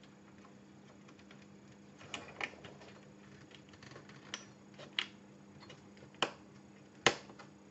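Small clicks and taps of a Kickstart ROM chip's legs being worked into its DIP socket on an Amiga 1200 motherboard, about half a dozen scattered over several seconds with the sharpest near the end, over a faint steady hum. The chip's legs are splayed wider than the socket holes and are being nudged into line.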